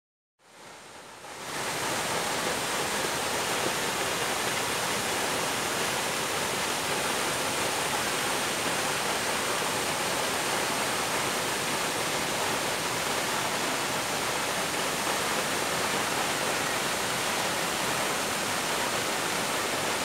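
Waterfall: a steady rush of falling water, fading in over the first second or so and then holding level.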